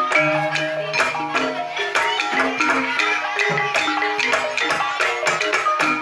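Gamelan ensemble playing a Banyumasan tayub gending: keyed metallophones and xylophones struck in quick, busy patterns over sustained low tones and percussion.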